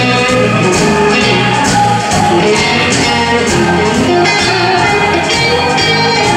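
Live blues band playing an instrumental passage: Telecaster-style electric guitar over drums keeping a steady beat.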